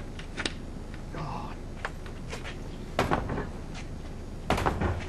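A series of knocks and bangs, the loudest about three seconds in and again near the end, over a steady low background.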